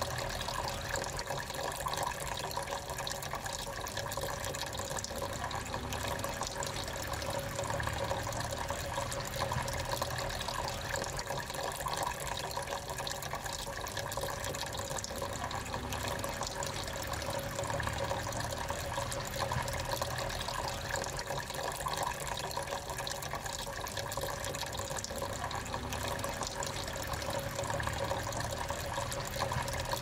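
Small tabletop waterfall fountain running steadily, thin streams of water trickling from pot to pot and splashing into the shallow basin below.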